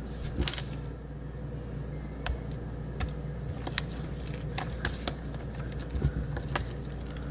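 Scattered light clicks and taps at an irregular pace, a dozen or so over several seconds, over a steady low hum.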